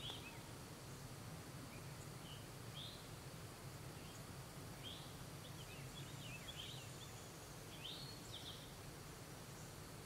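Faint dawn outdoor ambience: birds giving short, scattered chirps over a steady low background hum.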